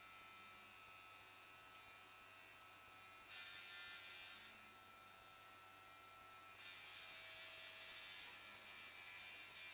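Electric tattoo machine buzzing steadily, getting louder for a stretch about three seconds in and again from about two-thirds of the way through.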